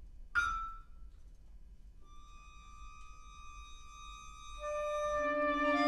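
Chamber ensemble of oboe, viola, accordion, piano and percussion playing a sparse, quiet passage of contemporary music: a single sharply struck ringing note, then a long held high note, with lower held notes joining and swelling near the end.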